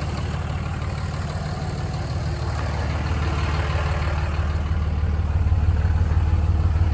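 Third-generation Cummins diesel engine idling steadily, growing louder over the second half.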